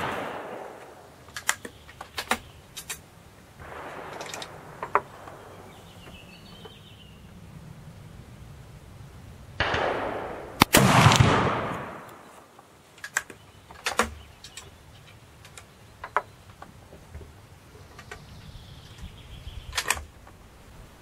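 An 1867 Wänzl breech-loading rifle fires one shot of 14x33R black-powder cartridge about ten and a half seconds in, and its report rings out for about a second. The fading echo of the previous shot opens the stretch. Short metallic clicks before and after the shot are the rifle being handled and reloaded between shots.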